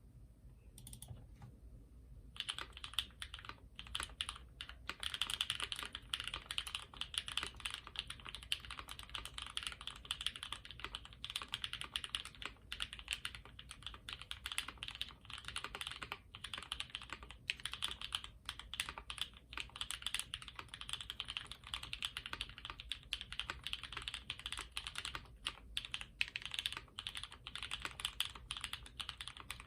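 Continuous fast typing on a custom HHKB-layout mechanical keyboard with a brass bottom, carbon fiber plate, Cow switches lubed with Krytox 205g0 and filmed, and GMK keycaps. A few scattered keystrokes in the first two seconds, then a steady rapid run of key clacks.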